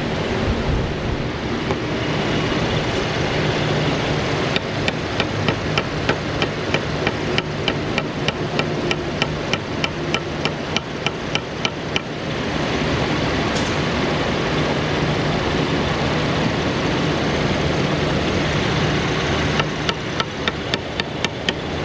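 Car engine idling steadily. Over it comes a run of sharp, evenly spaced taps, about four a second, for several seconds in the middle and again near the end.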